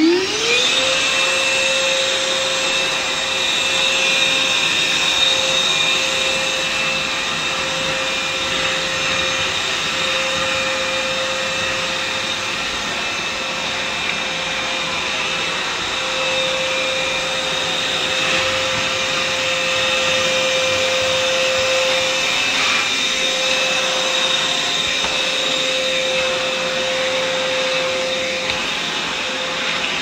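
Parkside PNTSA 20 Li A1 cordless wet and dry vacuum cleaner spinning up to speed just at the start, then running steadily with a steady whine while sucking up water from plastic sheeting.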